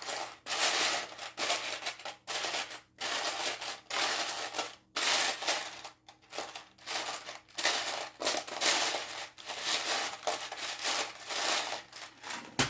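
Loose plastic Lego pieces rattling and clattering as a hand rummages through them, in a long run of irregular scraping bursts with short pauses.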